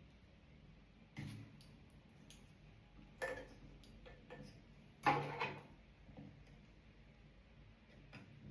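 A few sharp clicks and knocks of diffuser parts being handled and pressed together while someone struggles to assemble them, the loudest about five seconds in.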